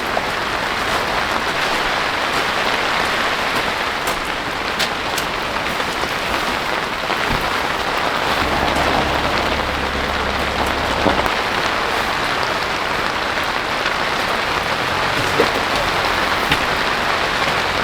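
Steady rain falling, with a few faint taps and a brief low rumble near the middle.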